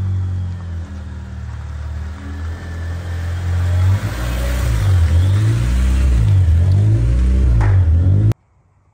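Honda Prelude engine running as the car drives past close by, its note steady at first, then rising and falling in pitch and getting louder through the second half. The sound cuts off abruptly near the end.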